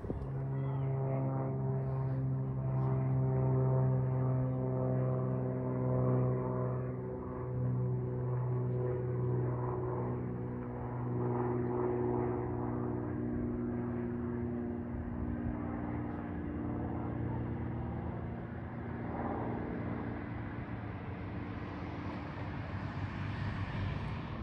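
Propeller airplane climbing out after takeoff: a steady engine-and-propeller drone that eases slightly lower in pitch partway through.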